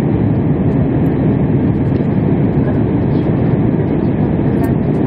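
Steady cabin roar inside a Boeing 787-8 in flight, heard from a window seat beside its Rolls-Royce Trent 1000 engine. The engine and airflow noise is even and unchanging.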